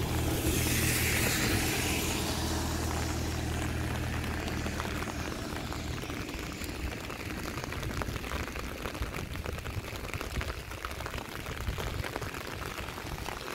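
A car passes on the wet road, its tyres hissing on the wet asphalt. The hiss swells and fades over the first few seconds, over a low engine hum that dies away about halfway through. After that, light rain noise with small patters.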